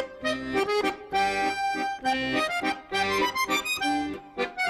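Background music: an accordion playing a lively tune over a pulsing bass-and-chord accompaniment.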